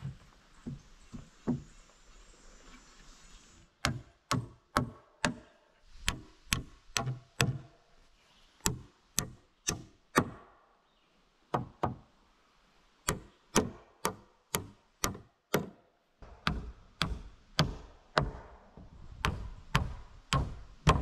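A hammer driving nails into pine framing lumber: runs of sharp blows about two a second, with short pauses between nails. The first couple of seconds hold only a few lighter taps.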